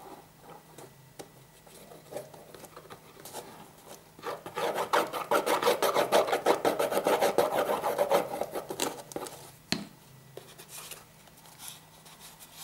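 Rapid back-and-forth rubbing or scraping on cardboard, several strokes a second for about five seconds, starting about four seconds in, then a single tap.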